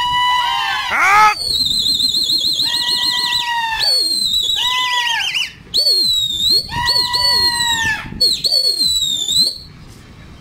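A loud, high whistle-like melody of long held notes with a fast warbling wobble and short gliding breaks, cutting off suddenly near the end.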